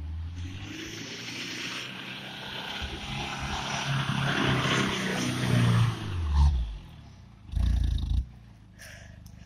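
Mitsubishi Pajero 4x4's engine revving as it ploughs through soft sand, growing louder as it approaches and passes, then working up a sand hill. A short, loud low burst of rumble comes about eight seconds in.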